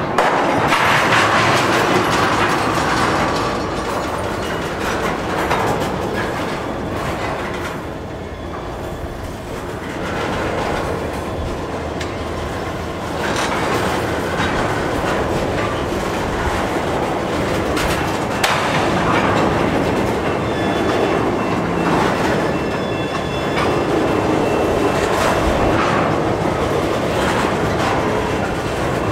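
Freight train tank cars rolling past at trackside: a steady rumble of steel wheels on rail, with the wheels clicking over rail joints. Faint high wheel squeal comes in during the second half.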